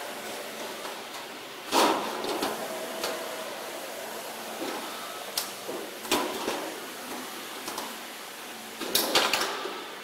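Thin sheet metal for a solar water heater's outer tank rattling and clanking as it is handled and pressed into place on the locking machine's bed. There are sharp clatters about two seconds in, a few smaller ones in the middle, and a louder cluster near the end, over a steady workshop hum.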